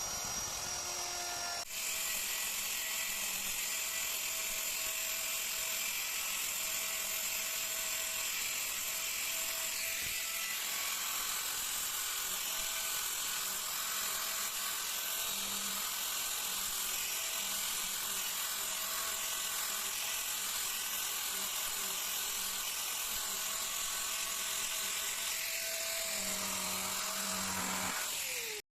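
A high-speed handheld power tool carving wood, running steadily with a high-pitched whine. There is a brief break about two seconds in, and it cuts off abruptly at the end.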